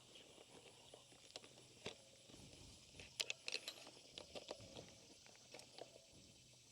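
Faint clicks and light knocks of a motorcycle tire bead breaker being worked onto the wheel rim, with a quick cluster of sharper clicks about three seconds in.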